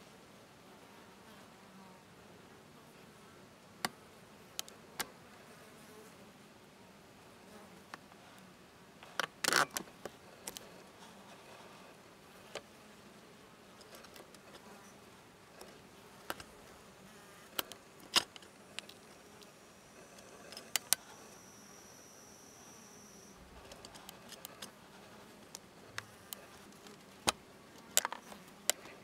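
Faint buzzing of a plasterer bee's wings, coming and going as the bee struggles, under scattered sharp clicks, the loudest a cluster about nine to ten seconds in. A brief high steady tone sounds about twenty-one seconds in.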